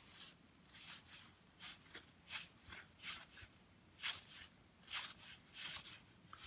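Cardboard baseball trading cards sliding against one another as a stack is thumbed through by hand: a dozen or so short swishes, about two a second.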